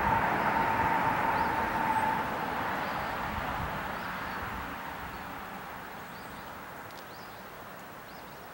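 Noise of a passing vehicle dying away slowly, with a steady whine in it for the first couple of seconds. Faint bird chirps can be heard as it fades.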